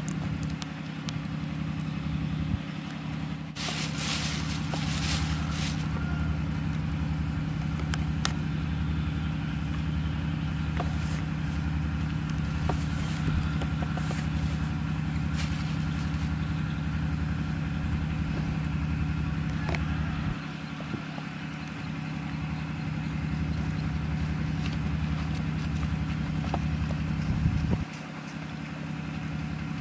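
An engine running steadily, a low hum with an even pulse, with a brief rustle about four seconds in.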